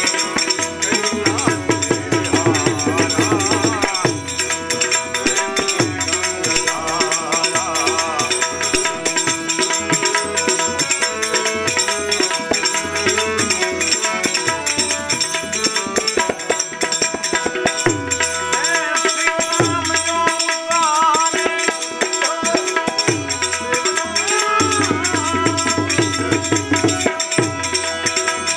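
Devotional Hindu bhajan music: harmonium and tabla with an electronic keyboard, a steady percussion rhythm under held reedy tones, and a man's voice singing at times.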